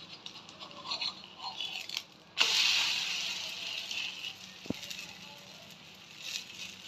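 A metal spatula scrapes under a wheat-flour malpua frying in oil on an iron tawa. About two and a half seconds in, the malpua is flipped and the hot oil sizzles loudly, the hiss fading over the next few seconds.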